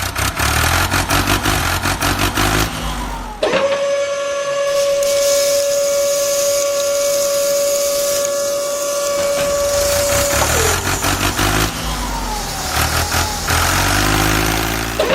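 Engine running with a low, pulsing throb, cut by a long steady whistle-like tone that lasts about seven seconds, then the engine sound returns.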